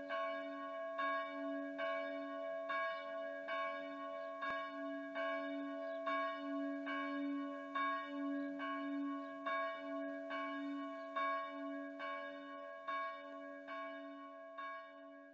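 A bell tolling steadily, struck a little more than once a second, its low hum ringing on between strikes and fading out near the end.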